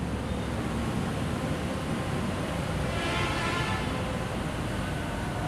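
Steady rumble of road traffic and vehicle engines, with a faint pitched tone lasting under a second about three seconds in.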